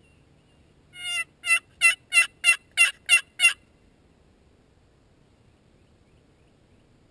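A series of turkey yelps: one drawn-out note, then seven short, sharp yelps at about three a second, all over within about two and a half seconds.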